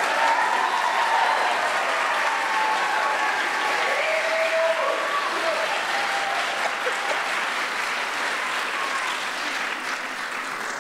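Audience applauding, with a few voices calling out over it, the clapping easing off near the end.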